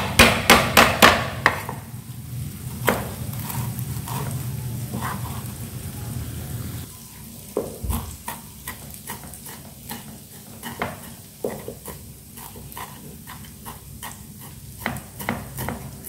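A cleaver smashing lemongrass stalks flat against a wooden chopping board, a quick run of heavy whacks in the first second and a half. From about halfway through, the cleaver chops the crushed lemongrass finely, striking the board about twice a second.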